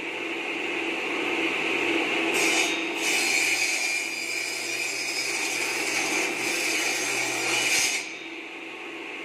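A mini bamboo-cutting machine's 12-inch circular saw blade, driven by a 1/2 hp low-speed electric motor, spins with a steady whine. About two seconds in, it bites into bamboo and saws through it with a loud rasping noise for about five and a half seconds. The noise cuts off abruptly as the cut finishes, leaving the blade running free.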